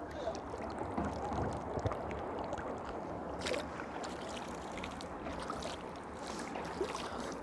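Steady rush of water flowing through a clear spring pool, with a few faint clicks and splashes as hands dip into the water.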